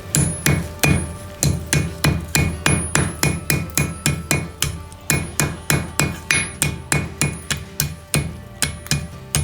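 Blacksmith's hammer striking a hot 1/4-inch mild steel bar on the horn of an anvil, bending the curve into it: a steady run of about three to four blows a second, each with a bright metallic ring.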